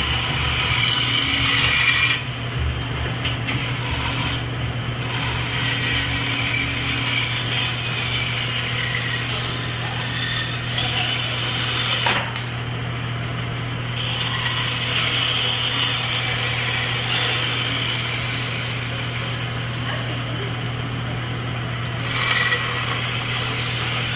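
Band saw running with a steady motor hum while its blade cuts through a wooden board, the rasping cutting noise swelling and easing as the wood is fed and turned.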